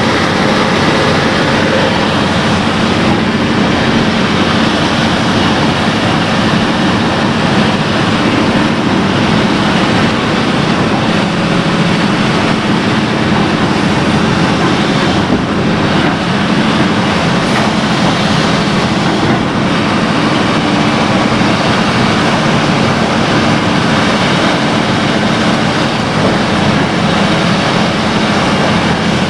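Excavator's diesel engine running steadily under load, a loud continuous rumble with a constant low hum, heard from on board the machine.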